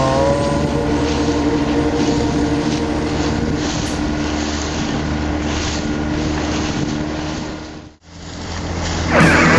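Motorboat engine running steadily under wind buffeting on the microphone. It fades out about eight seconds in, and rock music starts near the end.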